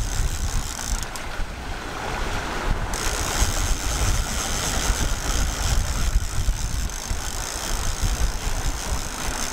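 Wind buffeting the microphone over the rush of sea water past a sailing yacht's hull, with a steady high hiss that stops about a second in and comes back near three seconds.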